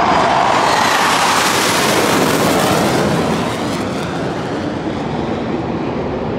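Jet engine roar from a formation of eight KAI T-50B jets passing overhead, loud for the first three seconds or so, then easing off as the formation moves away.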